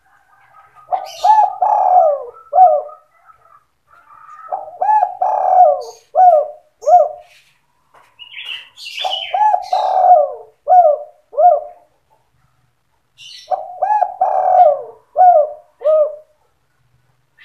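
Spotted dove (tekukur) cooing in the 'sandung kuk 2' style used as a decoy call for trapping doves: four phrases a few seconds apart, each a quick run of coos ending in two short separate notes. Faint high chirps come just before each phrase.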